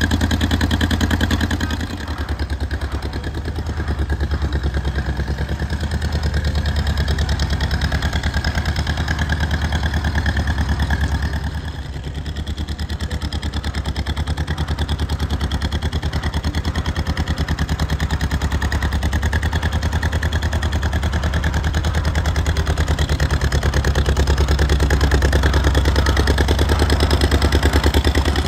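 1956 John Deere 420W tractor's two-cylinder engine running with a fast, even firing beat as the tractor is driven. It dips briefly about two seconds in and again around twelve seconds, and grows louder near the end as the tractor comes close.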